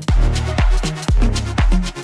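Background electronic dance music with a steady four-on-the-floor kick drum, about two beats a second, and a pulsing bass line.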